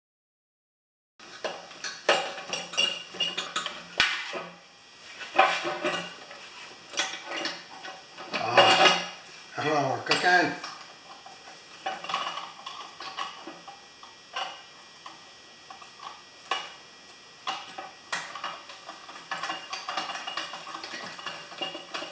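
Metal tools and small-engine parts clinking and clanking irregularly as the fuel tank and carburetor assembly is unbolted from a Briggs & Stratton engine. The sound starts about a second in, after a moment of silence.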